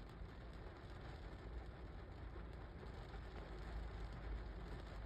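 Rain drumming on a car's windshield and roof, heard from inside the car: a steady patter of drops over a low rumble, growing slightly louder.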